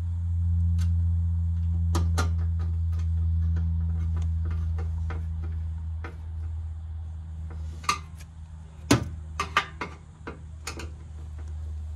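Scattered clicks and knocks of hands working inside an air-conditioning indoor unit's metal housing, loudest and busiest about eight to nine seconds in, over a steady low hum that slowly fades.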